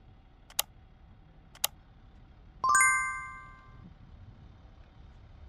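Two sharp metallic clicks, then a metal clang about halfway through that rings with several tones and dies away over about a second: metal tools or parts knocking against the UH-1Y Venom helicopter's main rotor head during maintenance. A faint steady hum lies underneath.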